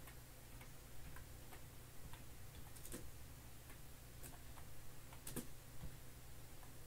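Faint, irregular clicks of a computer keyboard being typed on, over a low steady hum.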